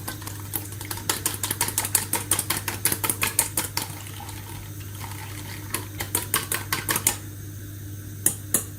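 An egg being whisked in a bowl: quick runs of clicks and taps of the utensil against the bowl, pausing about four seconds in, then resuming in shorter runs.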